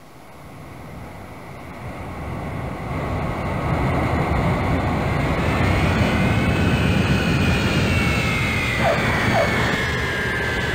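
Jet aircraft flying past: the engine rumble builds over the first few seconds, then a high whine rises and falls in pitch as it goes by.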